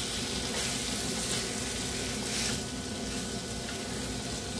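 Masala sizzling in a kadhai while chopped boiled eggs are stirred through it with a wooden spatula: a steady frying hiss with the occasional soft stroke of the spatula.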